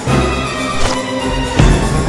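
Dramatic film score of sustained tones, with a heavy low hit at the start and another near the end.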